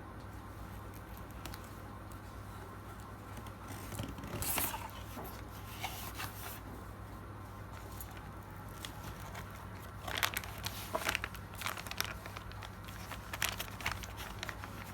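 Motherboard packaging being handled and opened: a longer noisy stretch about four seconds in, then a run of short rustles and clicks from about ten seconds. A steady low hum runs underneath.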